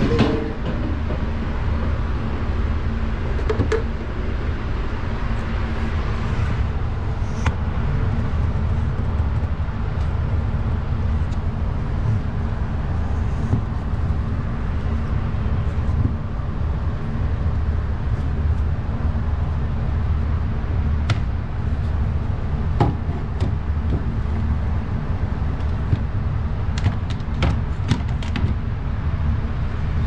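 Refrigerator compressor running with a steady low hum, a few light clicks over it.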